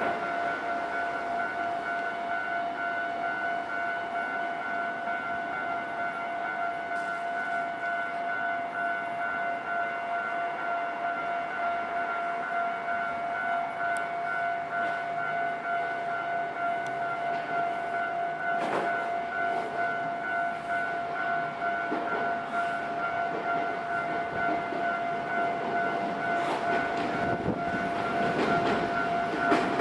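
Electronic warning bell of a Japanese railway level crossing ringing, a steady repeating two-tone clang. Over the last few seconds the noise of an approaching train rises under it.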